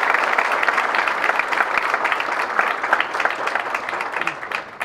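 Audience applauding, with many hands clapping densely. It thins out near the end to a few last claps.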